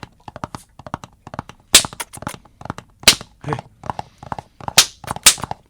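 Handmade horse-gallop sound effect, made with household objects: a quick run of knocks in a galloping rhythm, with a few sharper, louder strikes.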